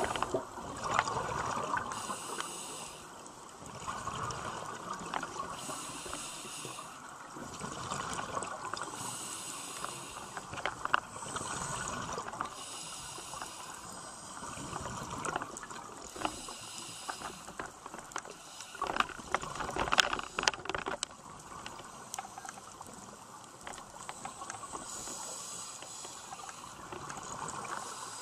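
Scuba diver breathing through a regulator underwater: a hiss on each inhale alternating with bubbling exhales, a breath every few seconds, with a few sharp clicks.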